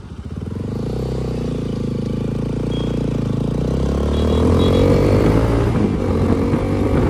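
Bajaj Pulsar RS200 single-cylinder engine through an aftermarket Akrapovic exhaust, pulling away and accelerating. Its note grows louder and rises in pitch over the first five seconds or so, then holds steady.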